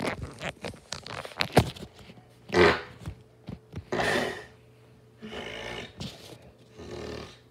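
Dog making a series of short vocal noises, four of them a second or so apart, the loudest about two and a half seconds in and a longer one around five to six seconds in. A few sharp clicks come in the first two seconds.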